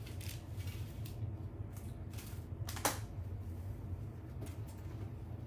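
Light clicks and knocks of baking pans and kitchen items being handled, the sharpest about three seconds in, over a steady low hum.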